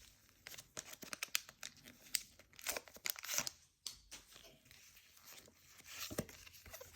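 Foil wrapper of a Pokémon booster pack being torn open and crinkled by hand: a run of irregular small crackles and rips.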